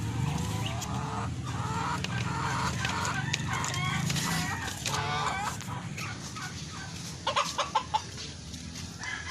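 A flock of chickens clucking, with a rooster crowing among them. A run of short, sharp, loud clucks comes about seven seconds in.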